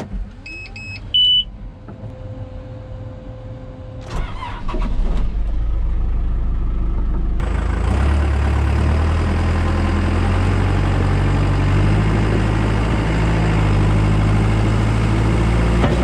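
Caterpillar 420F backhoe loader's diesel engine being started cold: a few short electronic beeps from the dash as the key is turned, a brief crank about four seconds in, then the engine catches and runs. It grows louder and fuller about seven seconds in and settles into a steady idle.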